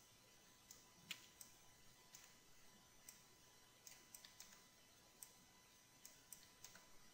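Faint, irregular clicks of a computer mouse and keyboard, about a dozen scattered through, the loudest about a second in, over near-silent room tone.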